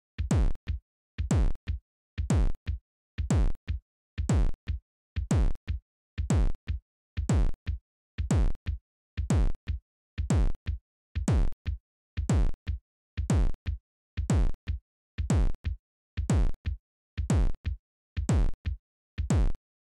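Live-coded electronic drum pattern: a deep kick-like drum hit that drops in pitch, struck in pairs about once a second, cutting off shortly before the end when the pattern's code is deleted.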